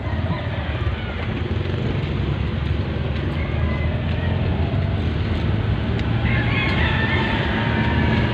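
Steady low rumble of a van's engine and road noise, heard from inside the cabin while it drives.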